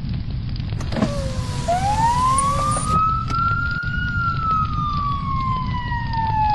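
Emergency siren wailing: one slow tone that rises for about two seconds, then falls slowly, over a steady low noise. A brief hiss sounds about a second in.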